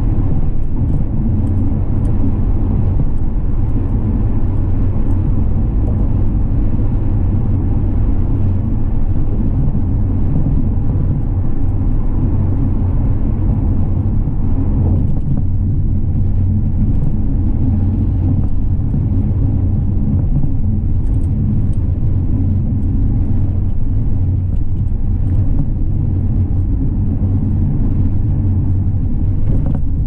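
A car driving, its engine and tyres giving a steady low rumble.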